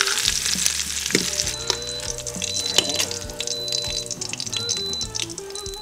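Beef short ribs sizzling in hot oil and butter in an Instant Pot's inner pot on the sauté setting, with a few light clicks of metal tongs. The sizzle is strongest in the first second or so and then thins out, over background music.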